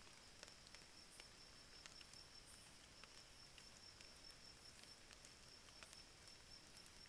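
Faint forest ambience: a steady high-pitched insect trill, with scattered faint ticks and clicks over a low hiss.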